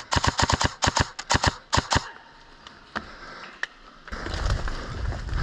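Airsoft gun firing in rapid full-auto bursts of sharp clacks, about nine shots a second, for the first two seconds, then two single shots. About four seconds in, a steady low rumble takes over.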